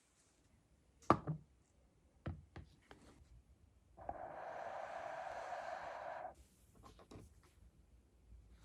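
A few light knocks and clicks of metal parts being handled, then a steady noise for about two seconds, then more light clicks.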